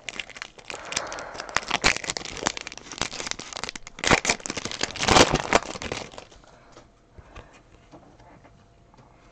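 Plastic trading card pack wrapper being torn open and crinkled by hand: a dense run of crackling, loudest about four and five seconds in, that dies down after about six seconds to a few light clicks as the cards come out.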